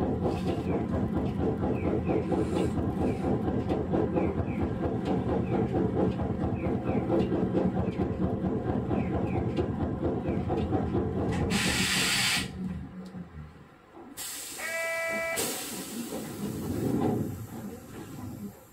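Sapporo streetcar M100-type car M101 heard from on board: a steady rumble of motors and wheels on rail while running, which dies away about two-thirds through as the car comes to a stop. A short burst of air hiss comes as it halts, then a second hiss with a brief beep.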